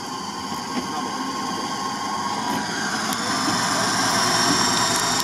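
UAZ-469-type off-roader's engine running as it rolls slowly, with a high whine coming in about three seconds in and growing. The crew have just heard bad noises from the drivetrain and take them as a sign that the planetary gear is done for.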